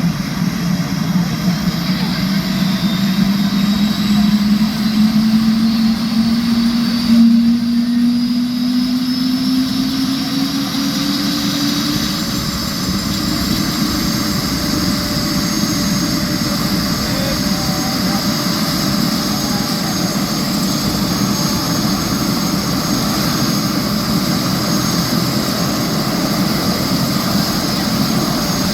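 Helicopter on the ground during start-up, its engine and rotors spinning up: a rising whine over the first twelve seconds or so, then a steady run as the three-blade main rotor comes up to speed.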